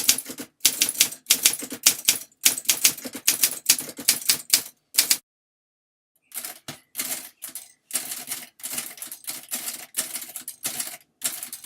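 Typing on two portable typewriters in turn, a 1937 Remington Deluxe Noiseless and a 1952 Olympia SM2, for a sound comparison. A quick run of sharp keystroke clacks stops about five seconds in, and after a pause of about a second a second run begins, somewhat quieter at its peaks.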